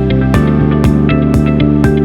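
Background music with a steady beat: plucked guitar notes over held bass notes.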